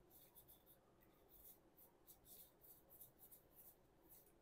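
Faint, soft swishes of One Piece trading cards sliding against one another as a hand flips through a fanned stack, in short irregular strokes.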